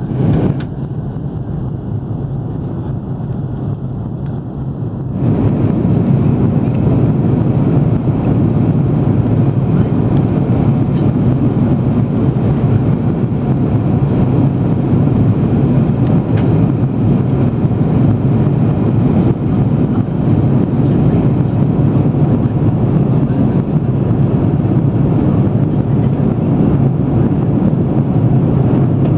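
Steady cabin roar inside an Airbus A330-300 in flight: engine and airflow noise heard at a window seat, deep and even. It is duller for the first few seconds, then steps up and stays level about five seconds in.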